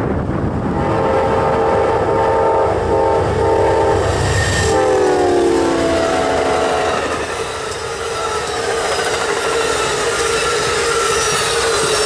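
Amtrak GE P42DC diesel locomotive's horn sounding a multi-note chord in a horn show: a series of short blasts as the train approaches, then the chord dropping in pitch as the locomotives pass and carrying on lower as they move away. Under it, the low rumble of the locomotives gives way to the rush and clatter of the passing passenger cars.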